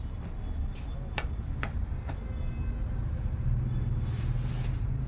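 Hands untying and unfolding a folded Assam silk mekhela: a few light clicks and taps in the first two seconds, then the silk rustling as it is opened out. A steady low hum runs underneath and gets louder about three and a half seconds in.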